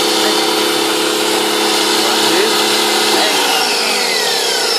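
Electric motor and pump of a pressure washer running with a steady hum and hiss, then switched off about three seconds in, its pitch falling as it winds down.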